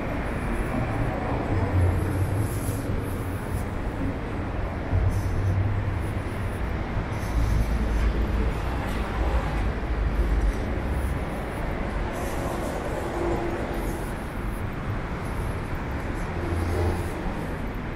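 Steady low rumble of outdoor city background noise, swelling a few times.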